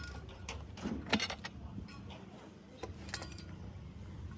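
Irregular metal clinks and knocks from parts being handled, a cluster about a second in and another about three seconds in, over a steady low hum.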